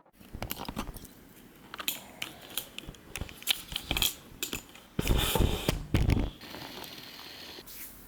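Small objects being handled: a string of light clicks and knocks, with a louder rustling clatter about five seconds in.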